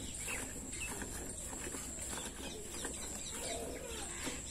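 Milk squirting in short, repeated streams into a steel pail as a cow is milked by hand, with birds chirping and a steady high-pitched whine in the background.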